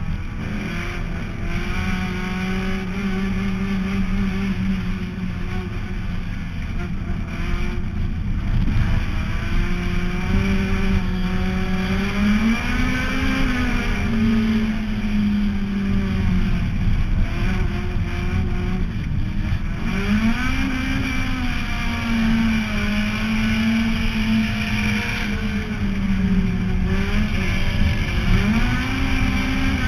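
Honda EF Civic race car's four-cylinder engine running hard, heard from inside the car over a heavy low rumble. Its pitch rises and falls with the throttle several times, with sharp climbs about twelve, twenty and twenty-eight seconds in.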